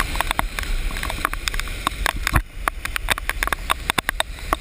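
Muffled low rumble of rushing floodwater runoff heard through a GoPro's waterproof housing, broken by many irregular sharp clicks and knocks from the camera being carried at a run.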